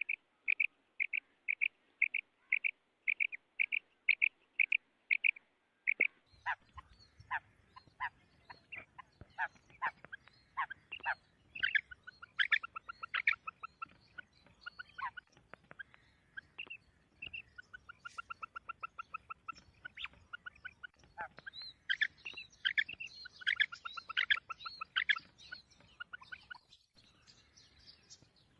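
Female quail calling: a steady series of short, high notes about two a second for the first six seconds, then a busier run of quick down-slurred notes and rapid trills over faint low background noise.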